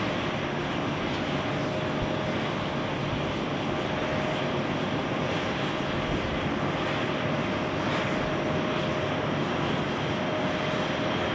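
Airbus A319-111's CFM56 turbofan engines at takeoff thrust as the jet rolls, lifts off and climbs: a steady rush of jet noise with a constant humming tone.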